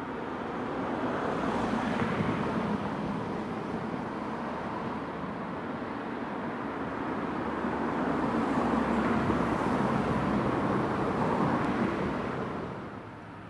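Road traffic going by: the tyre and engine noise of passing cars swells, eases off, swells again and fades away near the end.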